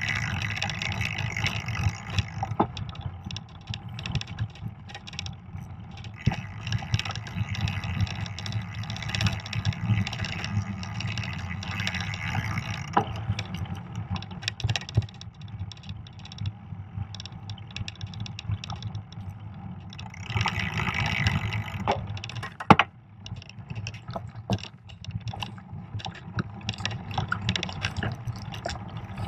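Fat bike rolling over a snow-covered trail, heard through a bike-mounted camera: a steady low rumble of the wide tyres on the snow with a hiss that comes and goes, and scattered knocks and rattles from bumps, one sharp knock about 23 seconds in.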